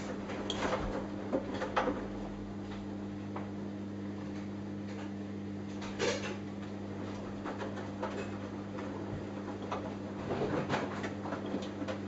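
Samsung Eco Bubble front-loading washing machine in its wash cycle: the drum turning with a steady hum while the laundry tumbles inside, giving scattered soft knocks and clicks, the clearest about six seconds in and several more near the end.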